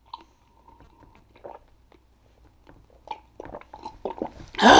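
Close-miked mouth sounds of sipping and swallowing water from a plastic cup: scattered small wet clicks and gulps, then a loud breathy burst near the end.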